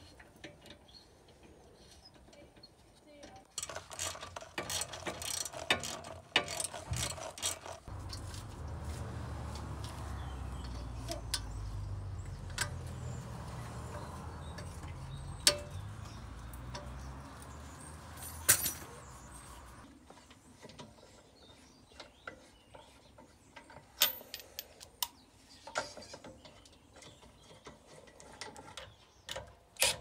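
Scattered metallic clicks, clinks and rattles from hand work on a brake caliper as new brake pads are fitted, with a steady low rumble through the middle of the stretch.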